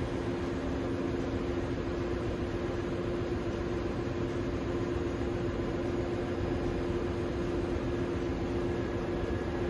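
Steady drone of a ship's engine-room machinery: a constant hum with two steady tones over an even rushing noise, unchanging throughout.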